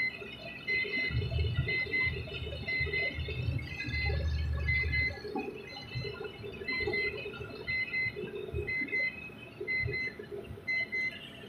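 An electronic warning buzzer in a truck cab beeps in an even rhythm, a little under two short high beeps a second. Under it, the Volvo FH12's diesel engine and road noise rumble, loudest between about one and five seconds in.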